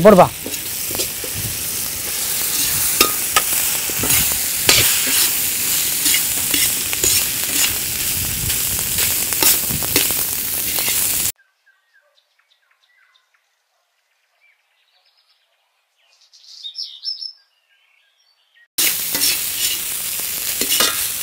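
Lemon-rice tempering sizzling in an iron kadai while cooked rice is stirred and tossed in it with a perforated metal ladle, the ladle clinking and scraping against the pan. About eleven seconds in, the sound drops out completely for several seconds, then the sizzling and stirring return.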